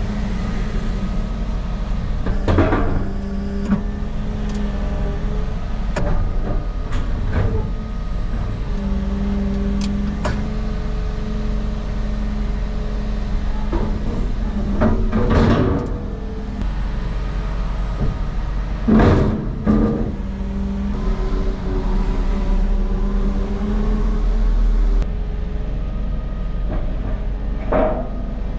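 Engine of a heavy machine running steadily, with a few knocks and clanks cutting through it, the loudest at about 15 and 19 seconds in.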